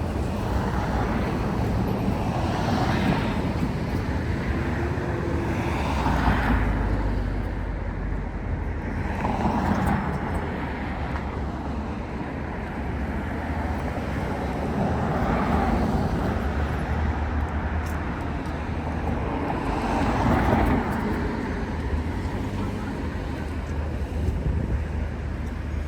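Road traffic: vehicles passing one after another in swells of a second or two, over a steady low rumble.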